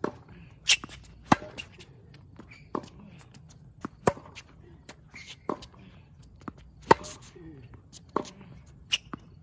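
Tennis rally on a hard court: sharp pops of racquets striking the ball, one about every second and a half, with quieter ball bounces in between.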